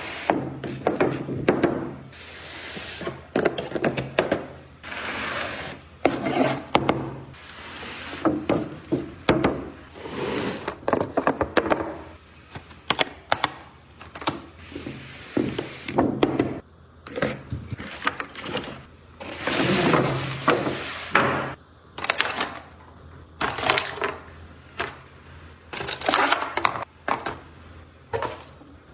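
Unboxing and handling noises: packaging rustling and being pulled open, with many sharp clicks and knocks as the toy and its box are handled.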